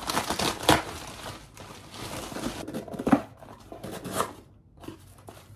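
Plastic mailing bag crinkling and tearing as a parcel is opened by hand, then a small cardboard box being pulled open. The rustles come in irregular bursts, loudest near the start and again about three seconds in.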